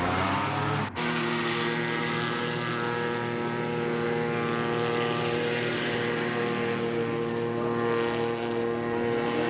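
Small hovercraft's engine and propeller running at a steady speed as it moves across the water, a constant droning note. There is a brief dropout about a second in; before it the pitch wavers.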